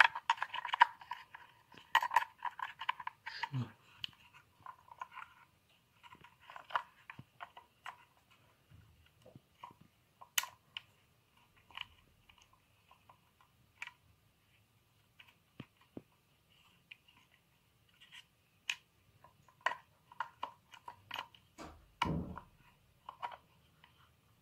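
Close handling of an Opel Corsa D door lock's plastic housing and metal lever while its spring is worked into place. Scattered clicks, ticks and crackly scraping of plastic and metal parts, busiest in the first few seconds, with one louder knock near the end.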